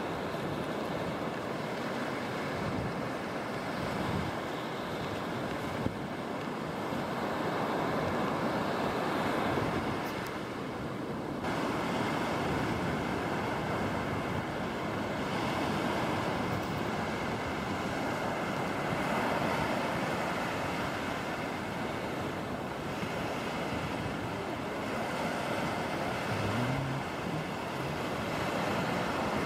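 Small surf breaking and washing up a sandy beach, a steady rushing that swells and eases, with wind on the microphone.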